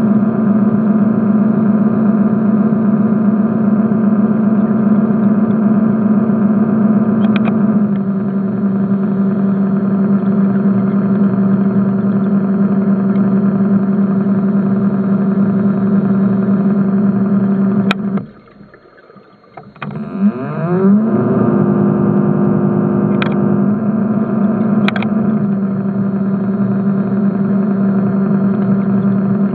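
A motor's steady pitched hum, heard underwater. It eases slightly about eight seconds in, cuts out for about two seconds past the middle, then spins back up with a rising whine.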